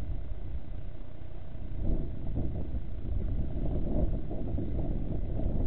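Wind buffeting the microphone: a steady low rumble that turns gustier from about two seconds in.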